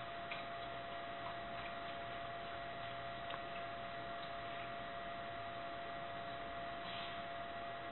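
Steady low electrical hum with a faint constant high tone, and a few faint ticks: room tone.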